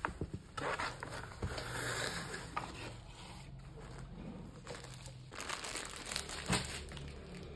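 Crinkling and rustling of packaging while a cardboard box is opened and a cloth drawstring bag is lifted out, with a few soft knocks and clicks from handling the box.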